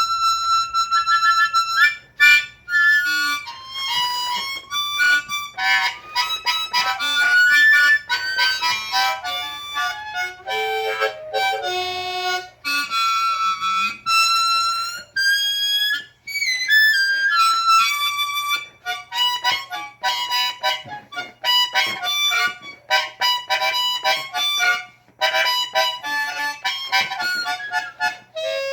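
Hohner Marine Band diatonic harmonica in D played in first position, in a pre-war blues style: a run of held notes and short phrases, with some notes bent in pitch.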